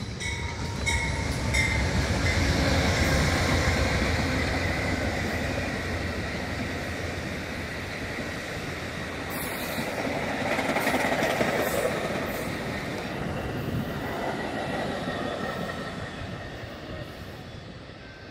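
Amtrak passenger train led by two GE P42DC diesel-electric locomotives passing, followed by Superliner bilevel cars: engine rumble and wheel noise on the rails. The noise swells twice, then fades as the train moves away.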